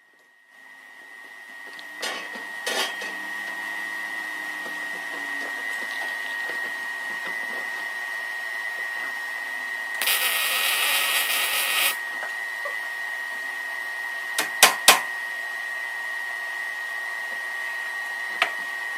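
A steady workshop hum with a constant high whine, a few sharp clanks of metal, and a loud hiss lasting about two seconds near the middle: a MIG welder tacking a steel plate.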